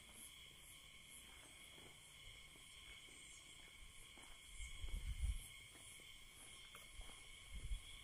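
A steady, shrill chorus of insects, droning on a few fixed high pitches. Brief low rumbles come about five seconds in and again near the end.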